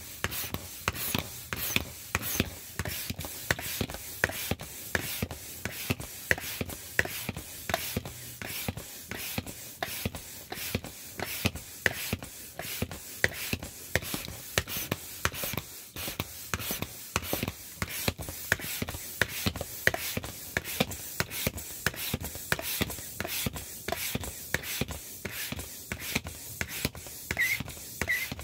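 Manual air pump worked in quick, even strokes, about two a second, each stroke a short rush of air through the hose into an inflatable vinyl rooster, with the thin vinyl rubbing and crinkling as it fills. The pumping stops abruptly at the end.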